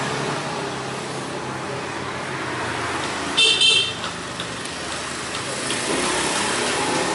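A brief high-pitched toot, about half a second long, a little over three seconds in, over a steady background noise.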